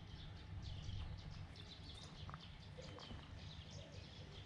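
Small birds chirping rapidly and repeatedly, many short high chirps overlapping, over a low steady rumble.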